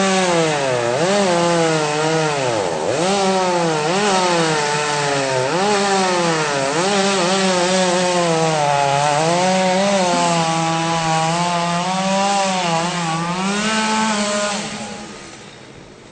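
Chainsaw running at high revs while cutting into a tree. Its engine pitch sags and recovers every second or two as the chain bites into the wood. Near the end it eases off and the sound dies down.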